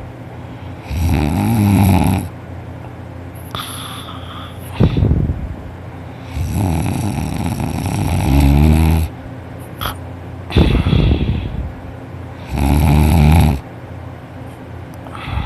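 A person in deep sleep on their back, mouth open, snoring heavily: five loud snores, the longest about two and a half seconds in the middle, with quieter breathing between them.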